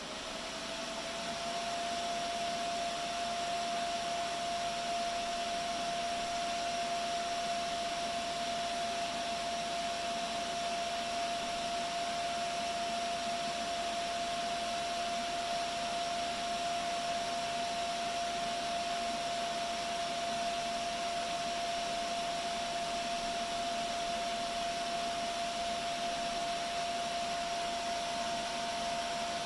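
Dell PowerEdge T630 server's cooling fans running: a steady rush of air with a single whine that rises a little in pitch over the first second or two as the fans speed up, then holds steady.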